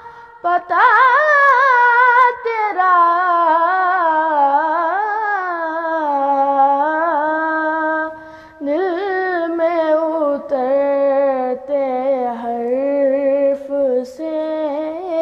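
A boy's solo voice singing an Urdu naat unaccompanied, drawing the words out into long, ornamented held notes with wavering pitch. The voice breaks off briefly for breath about eight seconds in.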